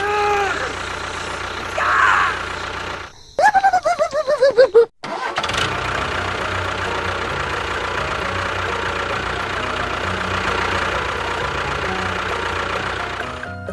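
A small engine being cranked, a quick run of pulses, then catching and running steadily for several seconds.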